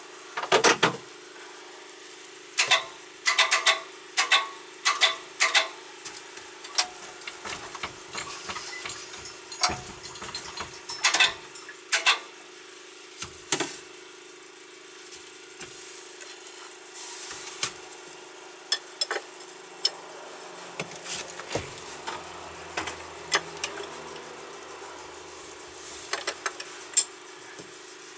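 Hand tools clinking and knocking on metal in scattered bursts while the MerCruiser 120 engine is unbolted in the boat's engine bay, over a steady hum.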